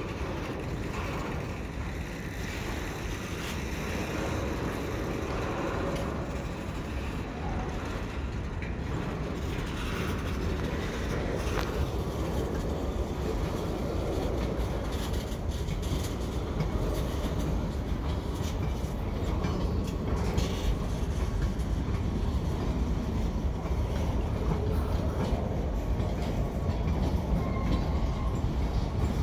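Freight cars rolling slowly along the track during yard switching: a steady low rumble of steel wheels on rail with scattered clicks, growing a little louder toward the end.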